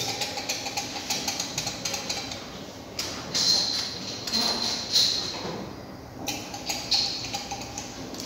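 Glass test tubes clinking and knocking against one another and a wooden rack as they are handled, a quick run of small sharp clicks with a brief glassy ring now and then.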